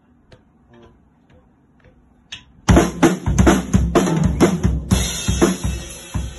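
Acoustic drum kit played loud for about three and a half seconds, starting almost three seconds in after a few faint ticks, with bass drum, snare and cymbals, the cymbals ringing on at the end.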